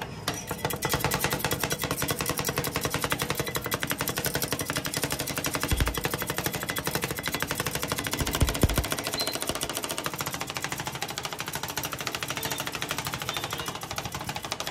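Two steel spatulas rapidly and steadily chopping an Oreo biscuit and ice cream mixture on a steel rolled-ice-cream freezing plate, a fast metallic clatter of blade strikes on the plate, with a couple of dull thumps midway.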